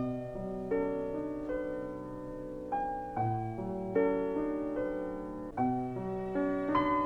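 Solo grand piano playing a slow melody over held chords, a new note or chord struck roughly every second and left to ring.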